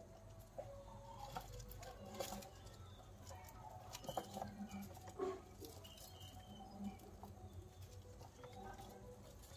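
Faint rustling and scratching of white rats moving over newspaper, with scattered small clicks.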